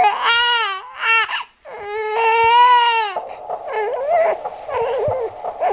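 Baby crying in several wails that rise and fall in pitch, the kind of cry that sets off the Zazu Dex soothing toy's cry sensor and brings its sounds back on. A quieter steady hiss joins about three seconds in.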